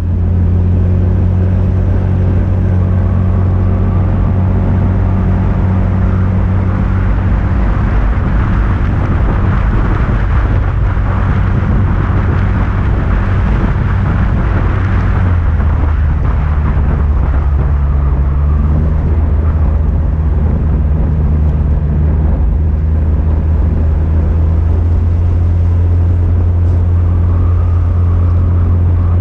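Motorbike engine running steadily while riding, a constant low drone that drops a little in pitch about halfway through, with wind and road rush swelling in the middle.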